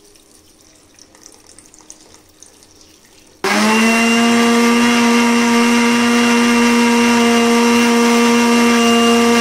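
Electric mixer grinder switched on about three and a half seconds in, spinning up quickly and then running with a loud, steady whine as it blends cucumber pieces with water in its jar. Before it starts there are only faint handling sounds.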